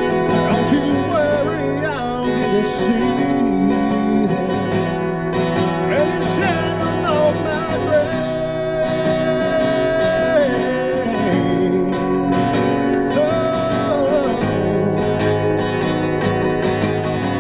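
A man singing into a microphone while strumming chords on an acoustic guitar, holding one long note midway. About three-quarters of the way through the singing stops and the guitar carries on alone.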